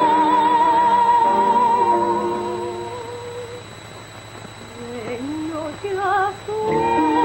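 A woman singing in an operatic style, holding a high note with vibrato over musical accompaniment. The music fades down about three seconds in. Near the end, short warbling vocal phrases lead into a new held high note as the music comes back.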